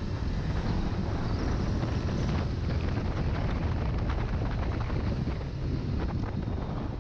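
Wind rushing over a helmet-mounted microphone on a 2019 Honda CBR500R at road speed, with the bike's parallel-twin engine running under it. The noise is steady, heaviest in the low end.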